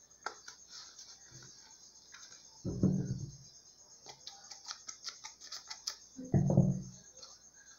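Masking tape pulled off its roll in two short rasping pulls about three and a half seconds apart, with light scissor snips and clicks in between.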